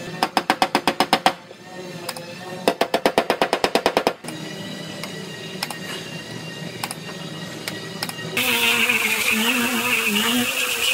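Two quick runs of rapid clicking, about ten clicks a second, each lasting about a second and a half. Then, about eight seconds in, a handheld air-powered grinder with a stripping disc starts whirring against the car's sheet-metal body panel, its pitch wavering under load.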